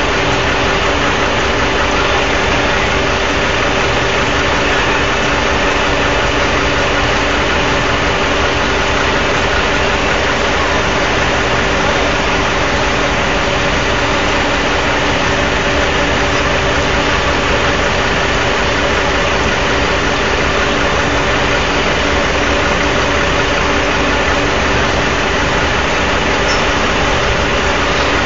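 Loud, steady drone of a running engine or turbine with a constant hum and no change in pitch throughout.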